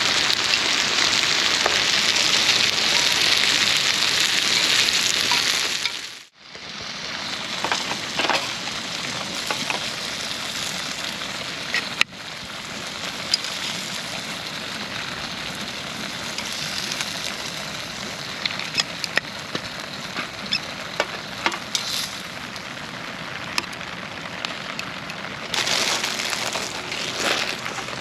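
Food sizzling in a pan over a small wood fire, with scattered crackles and pops. The hiss is louder for about the first six seconds, breaks off briefly, then carries on quieter.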